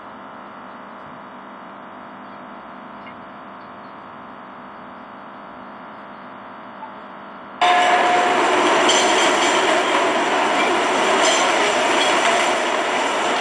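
Faint steady room noise, then, a little over halfway through, a sudden loud noisy clatter and rumble from a mess hall full of cadets, chairs and tables as they sit down to eat.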